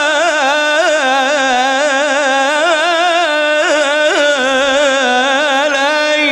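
A single male voice chanting an Islamic ibtihal, drawing one syllable out into a long melismatic run with rapid wavering ornaments and no break for breath.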